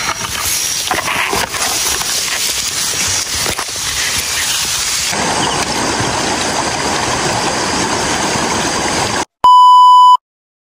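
Rustling and footsteps of hikers walking through tall talahib grass, a dense steady hiss, for about nine seconds. Then, after a brief break, a loud steady high test-tone beep from a colour-bar test card sounds for under a second and cuts off suddenly.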